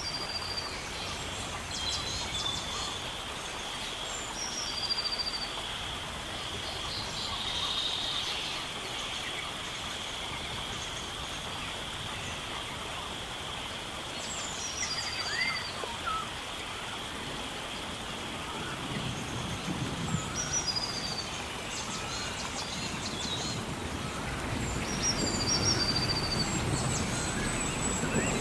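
Tropical forest ambience: birds repeat short, falling whistled phrases every few seconds over a steady high-pitched drone and a soft background hiss.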